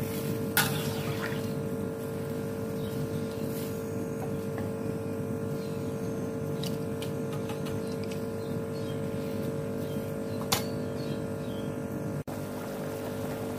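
A metal ladle stirring soup in an aluminium wok, clinking against the pan a few times, the loudest about half a second in and again near the end. Under it runs a steady low hum with a constant tone.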